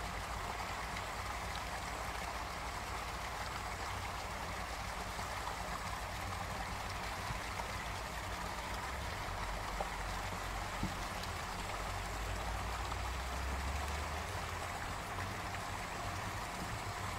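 Distant steam locomotive approaching with its train: a low rumble builds from about halfway through over a steady hiss of outdoor noise.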